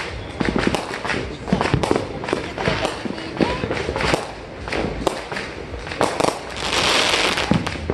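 Aerial fireworks going off: an irregular run of sharp bangs and cracks, with a loud hissing crackle about seven seconds in.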